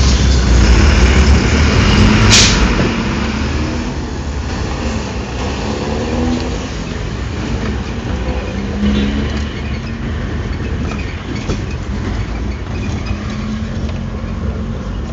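Car engine and road rumble heard from inside the cabin while driving, with a sharp click about two seconds in.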